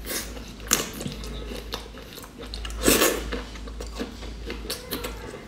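Eating a large boiled shrimp up close: sucking the meat out of the shell and chewing, with wet mouth clicks and a louder suck about three seconds in.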